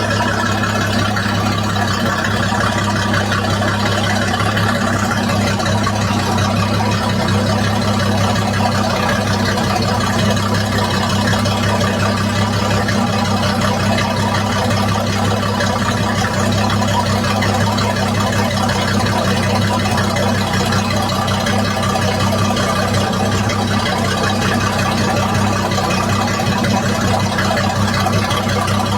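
Mercruiser 4.5-litre V6 sterndrive engine idling steadily, a constant low hum with no revving.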